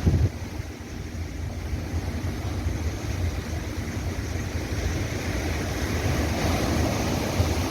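Winter sea surf washing onto the shore: a steady rushing noise over a low rumble, swelling a little in the second half, with a short thump right at the start.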